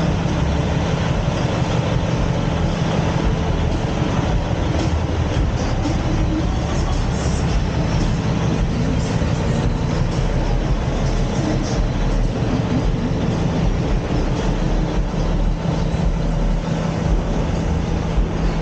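Semi truck's diesel engine running steadily, a loud constant low drone, as the tractor-trailer rolls slowly past.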